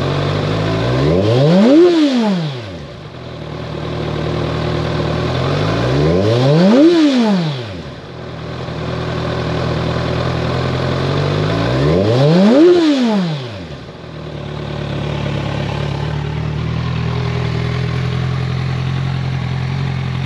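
2015 Kawasaki Ninja 1000's inline-four engine through a Vance & Hines CS One dual slip-on exhaust, idling and blipped three times. Each rev rises quickly in pitch and drops straight back to a steady idle.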